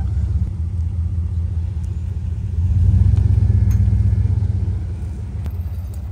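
Dodge Dakota pickup's engine running with a low note under the load of towing a car on chains, swelling louder about two and a half seconds in as the truck pulls away, then easing off.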